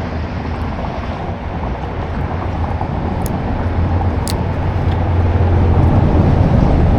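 A steady low rumble that slowly grows louder, with two brief sharp clicks in the middle.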